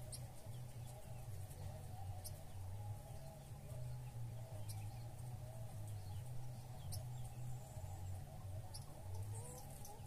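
Small songbirds giving a few short, very high chip calls, about two seconds apart and a little quicker near the end, over a steady low hum.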